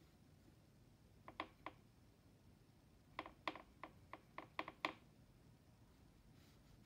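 Paintbrush clicking against a watercolour paint tin while picking up paint: three light taps, then a quicker run of about eight more.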